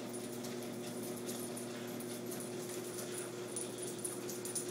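Treadmill running with a steady motor hum, and a Jack Russell terrier's paws lightly ticking on the moving belt as it walks.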